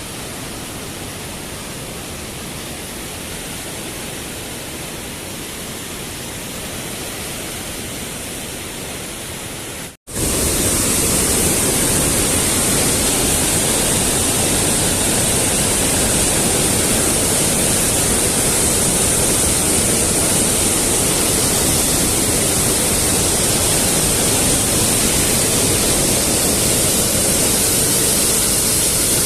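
Steady rush of a mountain stream and waterfalls cascading through a gorge. There is an abrupt cut about ten seconds in, after which the rushing is louder and hissier.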